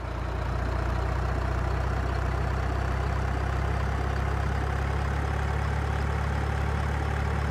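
Heavy diesel engine of an airport fire-rescue truck running steadily: a constant low drone with a hiss over it, fading in at the start.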